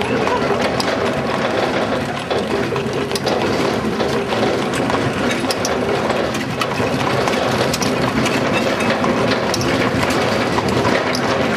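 Horse-drawn wooden wagon rolling along an asphalt road: a steady rattle and clatter from its wheels and frame, full of small rapid knocks.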